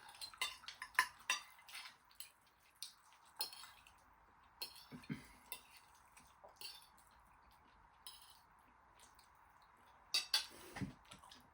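Cutlery clinking and scraping against plates as people eat, in scattered sharp clicks, bunched in the first two seconds and again about ten seconds in.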